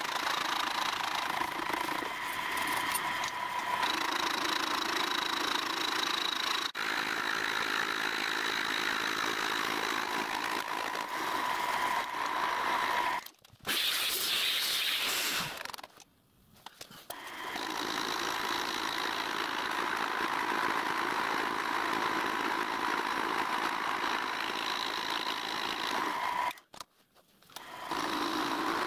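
Milling machine running with its end mill cutting a solid cast iron cylinder block: a steady whine over the noise of the cut. The sound breaks off briefly three times.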